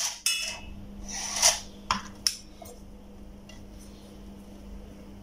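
Screwdriver held against the high-voltage wire grid of an electronic bug zapper, giving several sharp snaps and a short crackling spark burst about a second and a half in. The grid is live and arcing to the metal tip. A steady low hum runs underneath.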